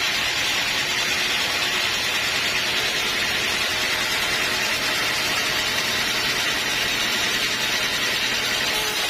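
Sawmill machinery running steadily: an even, unbroken mechanical noise with a faint low hum beneath it.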